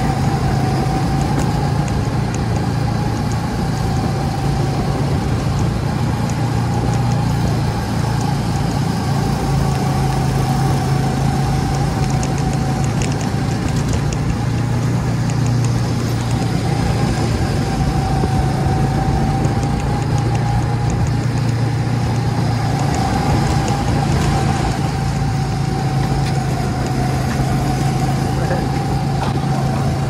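Go-kart engine running steadily under throttle, heard from the driver's seat, with a whine that drifts a little up and down in pitch over a constant low hum and a rumbling rush of noise.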